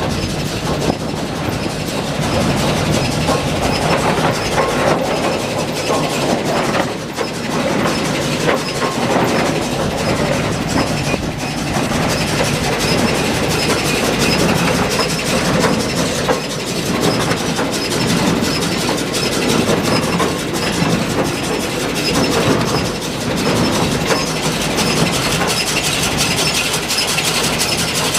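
Case International 8575 large square baler running, driven from a tractor's PTO, with a steady loud mechanical clatter over the tractor engine.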